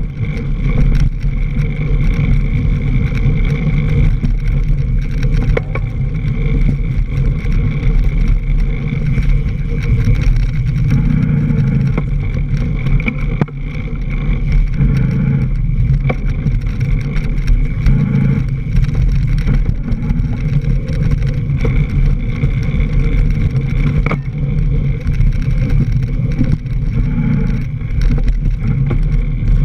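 Mountain bike riding fast over leaf-covered dirt singletrack, heard through a camera mounted on the bike: a loud steady rumble of wind and trail vibration with scattered rattles and knocks as the bike goes over bumps.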